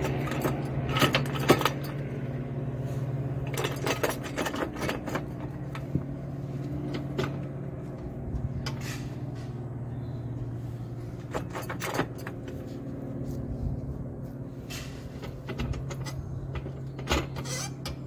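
Metal clanks and clicks of an axle stand being set in place and adjusted under a car, over a steady low hum.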